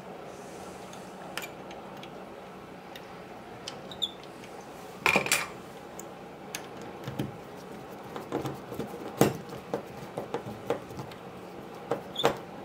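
Screwdriver clicking and tapping on the metal brackets and parts of a pinball machine's kickout-hole assembly as a leaf switch is fitted: scattered small metallic clinks, with the loudest cluster about five seconds in and a quick run of clicks a few seconds later.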